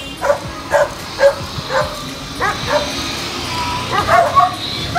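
A dog barking repeatedly: short barks about twice a second, with a pause of about a second before a final cluster of barks near the end.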